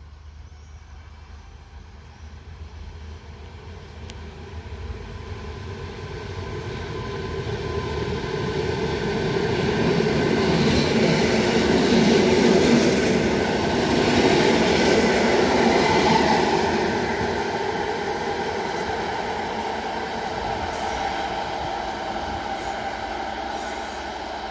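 PKP EN57 electric multiple unit passing on the track: wheels rolling on the rails with a steady electric hum. It grows louder to a peak about halfway through, then fades slowly as it moves away.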